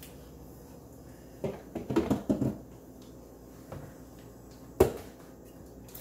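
Food packages and containers being moved around on refrigerator shelves: a cluster of knocks and rustles about two seconds in, and one sharp knock near the end.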